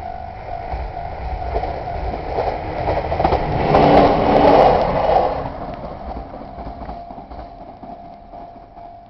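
A train passing a Japanese level crossing. The wheel-on-rail noise builds, is loudest about four to five seconds in, then fades away. The crossing's warning bell rings steadily throughout.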